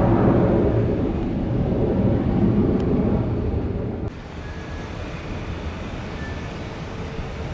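Jet airliner engine noise, loud at first and slowly fading, then dropping suddenly about four seconds in to a quieter steady rumble.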